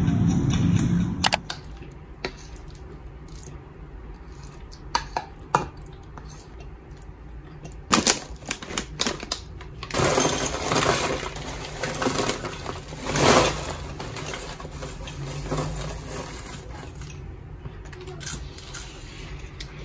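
Background music cuts off about a second in. Then a plastic bag of tortilla chips crinkles as it is handled, and chips rattle out of it into a small ceramic bowl in a few short, noisy pours.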